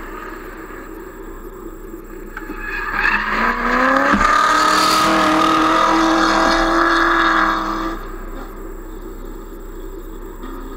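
Drift car sliding past sideways: its engine is revved high and held steady while the tyres screech. The sound builds from about two and a half seconds in, stays loud for about four seconds, then drops away.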